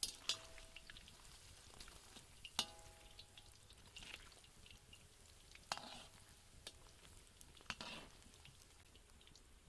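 Bottle gourd koftas deep-frying in oil in a large iron kadhai, a faint steady crackle, while a round perforated metal skimmer scrapes and knocks against the pan about six times, one knock a few seconds in ringing briefly.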